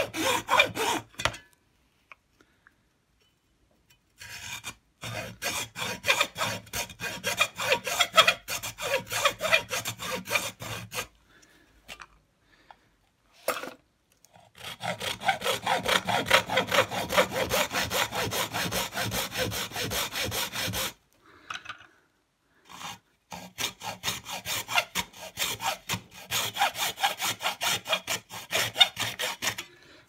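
Hacksaw cutting through the plastic housing of an electric shower's pressure switch in quick back-and-forth strokes. The strokes come in four runs separated by short pauses.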